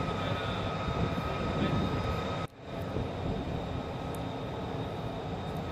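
Jet turbine engines running on an airfield flight line: a steady rumble with a constant high whine over it. The sound drops out for a moment about two and a half seconds in, then carries on.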